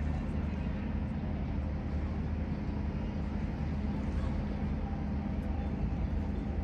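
Steady low engine drone with a constant hum that does not change.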